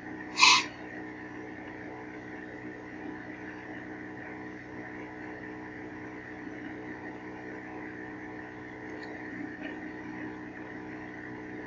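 Steady electrical hum and hiss with several faint steady tones, broken once about half a second in by a short, loud hissing burst, with a couple of faint ticks near the end.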